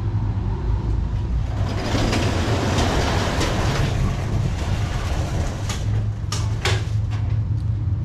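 Sectional garage door rolling up along its tracks as it is lifted by hand, a rush of rattling noise for a few seconds, then a few sharp knocks. Steady wind rumble on the microphone throughout.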